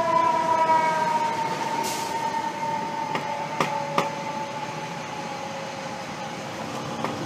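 Fire engine siren winding down, one long tone slowly falling in pitch and fading as the truck moves off. Traffic noise runs underneath, with two short clicks about three and a half and four seconds in.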